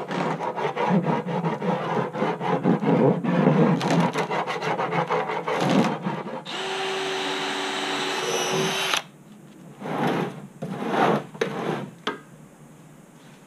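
A hand scraper rasping in quick repeated strokes along the cut rim of a plastic barrel, shaving off the burrs left by the saw. About six and a half seconds in, a cordless drill runs steadily for two to three seconds, drilling a drainage hole through the barrel wall, followed by a few short scraping and handling noises.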